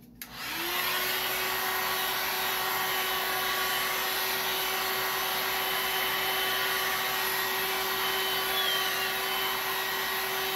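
Handheld heat gun switched on with a click. Its fan spins up within about half a second and then runs steadily with a rushing blow, heating a freshly poured clear epoxy coat.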